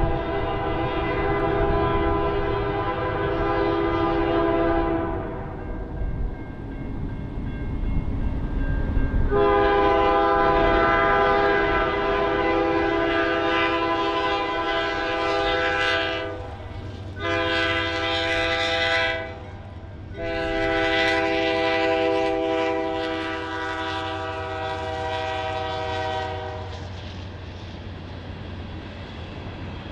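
Canadian National freight locomotive's air horn sounding the grade-crossing signal, long, long, short, long, as a multi-note chord. A low engine rumble builds beneath it from about halfway through as the train nears.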